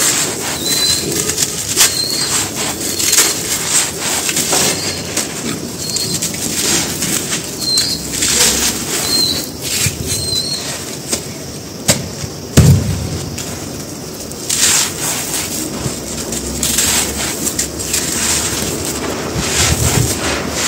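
Hands crushing soft, dry cement-powder balls: irregular crunching and crumbling with the hiss of dust pouring back onto the pile, and one heavier thump about twelve seconds in. Short bird chirps sound in the background during the first half.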